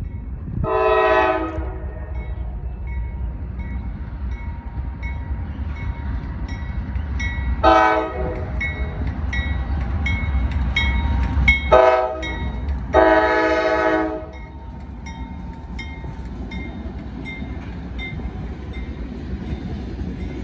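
Norfolk Southern freight train's diesel locomotives approaching and passing, with a steady low engine rumble. The multi-note air horn sounds four blasts, long, short, short, long, the horn signal for a grade crossing, while the crossing's warning bell rings steadily.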